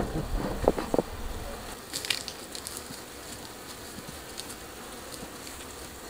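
African honeybee colony buzzing steadily around an opened, disturbed hive. A few light knocks come in the first second, with another click about two seconds in.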